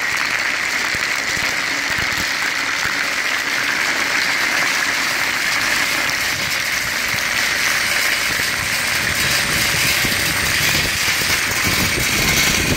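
Industrial vacuum suction truck running, drawing air through a long suction hose used to vacuum gravel off a roof: a steady rushing noise.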